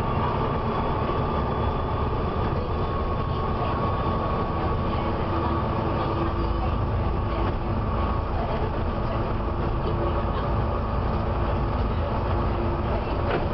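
Volvo B7TL bus's diesel engine running, with a steady high-pitched squeal over it; about six seconds in the low rumble grows heavier as the bus pulls harder. The squeal is the fan belt slipping.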